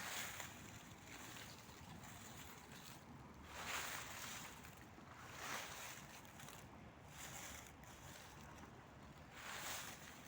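Dry fallen autumn leaves rustling, a faint swishing that swells every couple of seconds.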